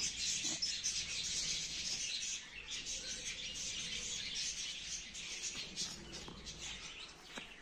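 Small birds chirping in a continuous, busy chatter.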